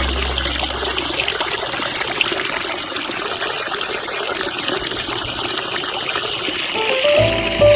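Hot spring water pouring and splashing steadily into a bath.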